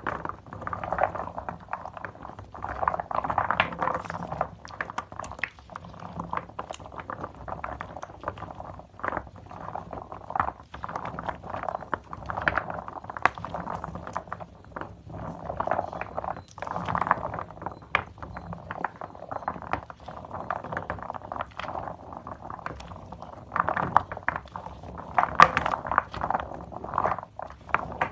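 Soaked, mushy bar soap and its thick foam squeezed and squished by hand: continuous wet squelching with dense, irregular crackling and popping of bubbles.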